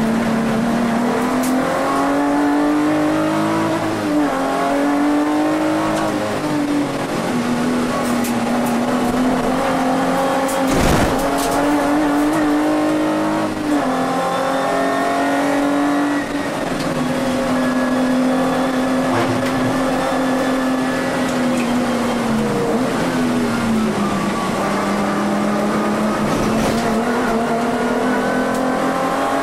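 Volkswagen Vento VR6's six-cylinder engine under racing load, heard from inside the cabin, its pitch climbing and dropping with throttle and gear changes. There is a single thump about eleven seconds in.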